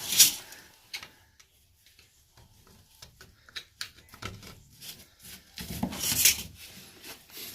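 Pipe parts and tools being handled while a fitting is worked into an old drain: a sharp scrape at the start and another about six seconds in, with scattered light clicks and knocks between.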